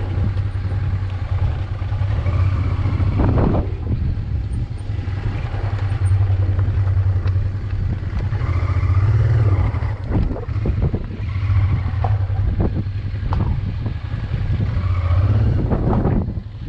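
Honda motorcycle engine running while under way, a steady low drone.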